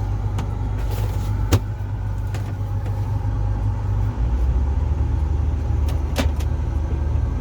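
Combine harvester's diesel engine running steadily, heard from inside the cab; its low drone shifts and gets a little louder about four seconds in. Two sharp clicks stand out, one about a second and a half in and one about six seconds in.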